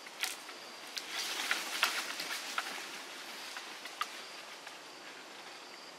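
Crackling, rustling patter with scattered sharp clicks, loudest between about one and three seconds in, over a faint high steady insect buzz that is heard again near the end.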